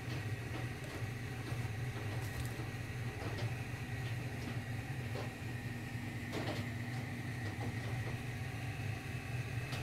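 A steady low hum with a faint thin tone above it, broken by a few light clicks, the clearest about six and a half seconds in.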